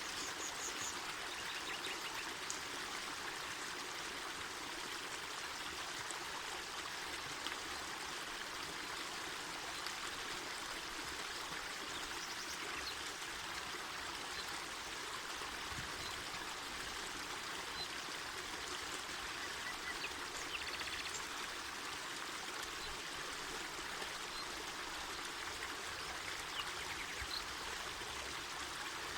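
Mountain forest river flowing, a steady, unbroken rush of water.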